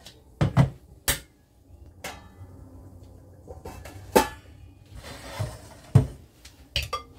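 Metal cookware clanking: a stainless-steel kettle, a ladle and a pot lid handled and set down on a gas stove and wooden counter, about half a dozen sharp knocks with a short rasping scrape about five seconds in.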